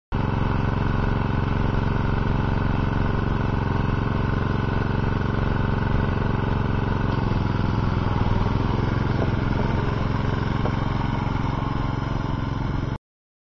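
Murray riding lawn tractor's engine running steadily as the tractor drives past, a little louder about two-thirds of the way through; the sound stops suddenly about a second before the end.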